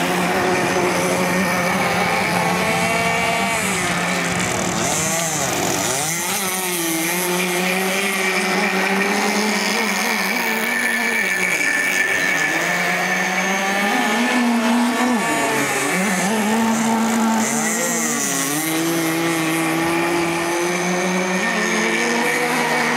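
26cc two-stroke gas engine of a radio-controlled model power boat, fitted with a new carburetor, running at high revs as the boat speeds across the water. Its note rises and falls over and over with the throttle and turns, dipping sharply a few times.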